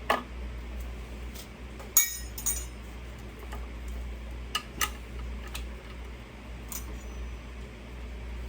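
Light metallic clinks and taps of small metal hardware being handled and fitted, with a few sharp clicks. The loudest are about two seconds in and near five seconds, over a steady low hum.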